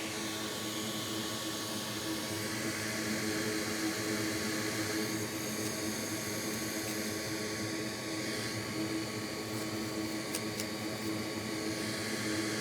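Steady whir and hum of electric fans on a microsoldering workbench, holding a few constant tones, with a couple of faint ticks near the end.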